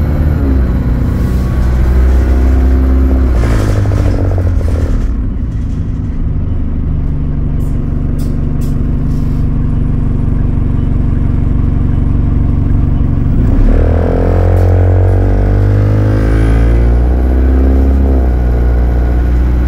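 Bus diesel engine heard from inside the upper deck: running under load, dropping to a steady idle about five seconds in, then revving up with a rising pitch near fourteen seconds as the bus pulls away, before settling to an even pull.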